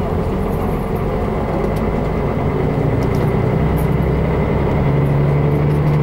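Bus engine running with road noise, heard from inside the bus; the engine note rises about four to five seconds in.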